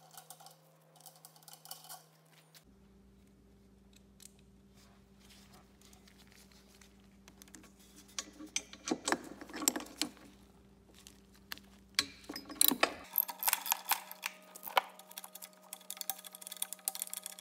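Ratchet wrench clicking and metal tools clinking as bolts on an air cylinder's mount are worked loose, scattered at first and coming thick and fast in the last few seconds. Over a faint steady hum.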